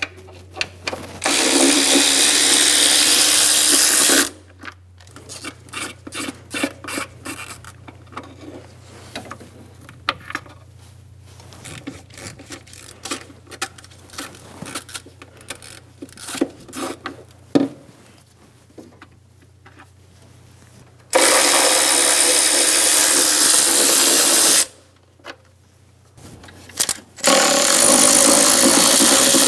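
A handheld power tool spins bolts out of the engine's timing covers in three runs of a few seconds each. Between the runs come scattered clicks and clinks of hand tools and metal parts.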